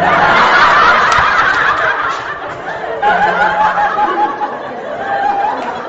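Laughter from many voices at once, loudest near the start and easing off over the next few seconds.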